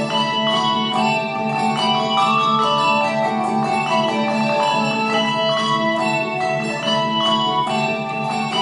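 A live instrumental ensemble playing in concert: full, steady music with many held notes and chords changing throughout.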